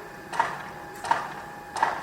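Construction-site noise: three sharp, regular knocks about 0.7 seconds apart, each ringing briefly, over a faint steady machine hum.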